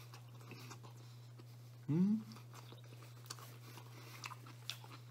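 A man chewing a bite of pizza crust, with scattered small wet clicks and crunches. About two seconds in comes a short, louder vocal sound that rises in pitch. A steady low hum runs underneath.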